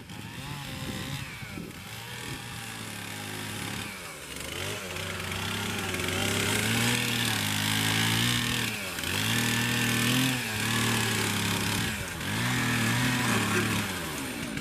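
Gas chainsaw cutting through a log, its engine revving to full throttle in about four long bursts, with the pitch dropping back between cuts.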